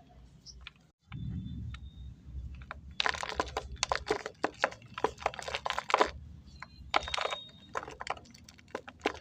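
Clay being crushed: a low handling rumble, then from about three seconds in, clusters of dense, sharp crackling crunches as the clay breaks up.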